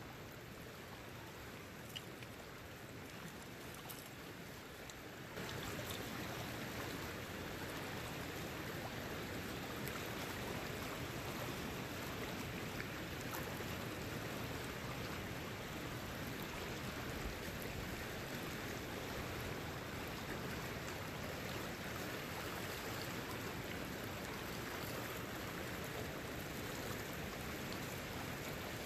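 Creek water rushing over shallow riffles: a steady, even rush that gets louder about five seconds in.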